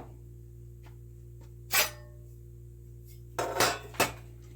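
Metal computer parts clinking as they are handled on a workbench: a single sharp clink about two seconds in, then two or three more in quick succession near the end.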